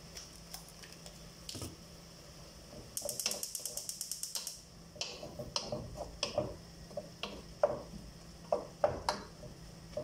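A quick run of rapid clicks lasting about a second and a half, then a spoon knocking and scraping against a metal cooking pot, a sharp tap about once a second, as tomato paste is spooned in.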